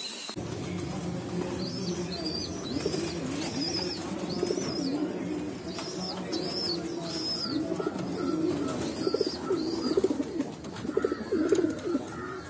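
Several domestic pigeons cooing, their low calls overlapping throughout. Above them, another bird's short high chirps repeat about twice a second through the first part.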